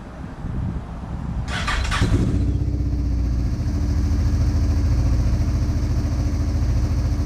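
A small motor starts about one and a half seconds in with a brief loud rush, then runs steadily with a low, fast pulsing.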